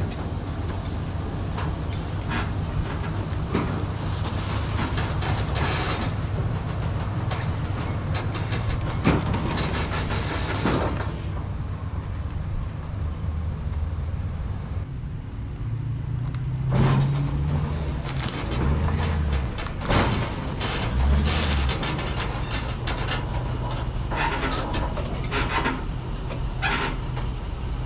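Vehicle engine running with scattered rattles and clunks, as an SUV is driven up onto a car-hauling flatbed trailer with a wooden deck.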